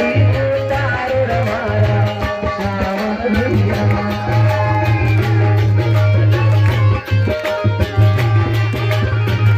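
Devotional folk music with a steady drum beat, played loud, while the congregation claps along in time.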